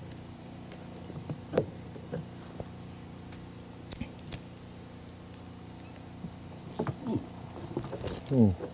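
Steady, shrill chorus of insects, a continuous high-pitched buzzing drone. Near the end a short low sound falls quickly in pitch.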